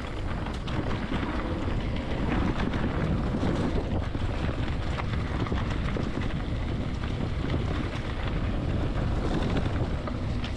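Wind buffeting the microphone while riding an electric mountain bike along a dirt trail: a steady low rumble with scattered clicks and rattles from the tyres and bike over rough ground.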